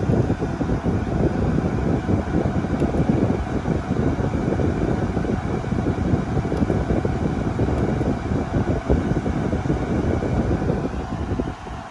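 Steady low rumbling noise, dropping a little in level near the end.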